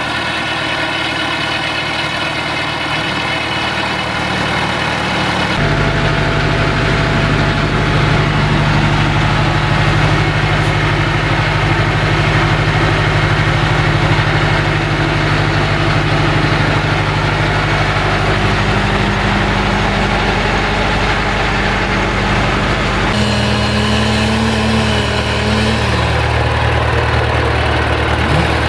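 UTB U651M tractor's diesel engine idling steadily.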